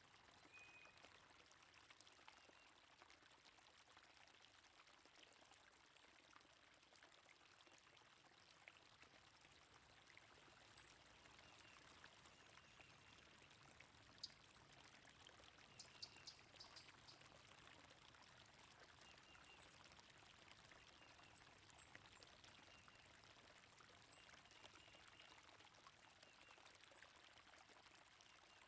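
Faint, steady flowing water of a stream, with scattered short, high bird chirps throughout and a few sharp clicks a little past the middle.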